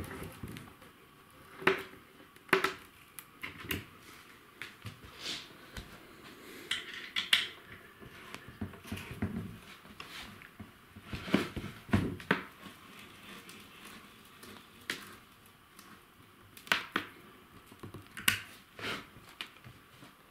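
Scattered knocks and clicks, a second or two apart, of hands handling a particleboard kitchen cabinet and its metal fittings, with light metal clinks.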